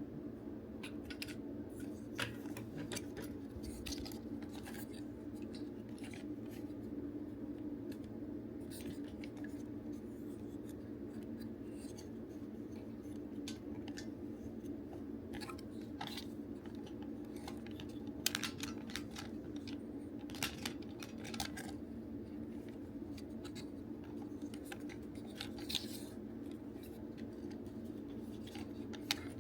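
Scattered small clicks, taps and scrapes of hand tools on hard plastic parts as a DX Bugster Driver Zwei toy belt is taken apart, over a steady low hum.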